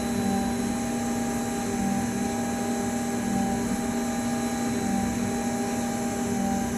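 CNC milling machine running a cut: the spindle gives a steady hum with a few held tones over a constant hiss, with no change in pitch or level.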